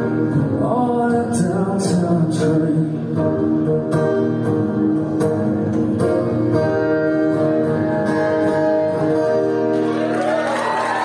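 Live solo performance: a male voice singing over a strummed acoustic guitar. The strumming stops about ten seconds in as the song ends.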